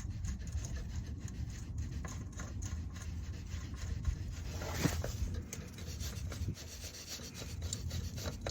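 Spin-on oil filter being unscrewed by hand from under a Honda Civic: faint rubbing and small clicks of handling, with a louder scrape about five seconds in.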